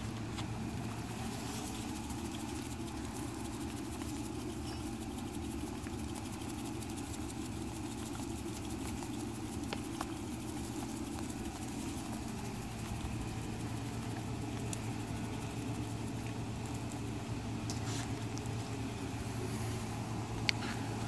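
Steady low hum of a running motor or engine, even throughout, with a few faint clicks.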